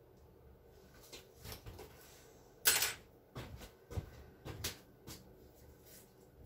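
A freshly poured canvas being handled and set down on a wire drying rack: a series of light knocks and rattles, the loudest about two and a half seconds in.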